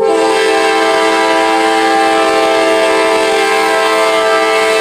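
CSX freight locomotive's air horn sounding one long, steady blast, starting abruptly, as the train approaches a grade crossing: part of its warning signal for the crossing.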